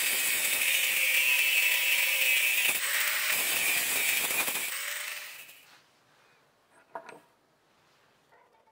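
Angle grinder with an abrasive disc cutting steel clamped in a bench vise: a steady, high grinding noise that fades out after about five seconds. One faint click follows near the end.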